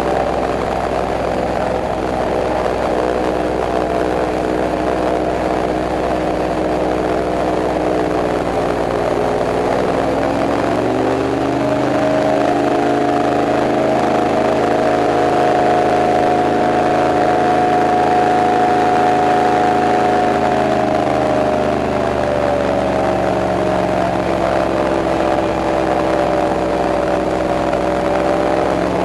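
Airboat engine and propeller running under way. The engine note rises about ten seconds in, holds steady, then drops back somewhat a little after twenty seconds.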